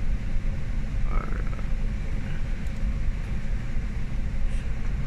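Steady low rumble and hum of shipboard machinery on a vessel underway, with no clear rhythm or change.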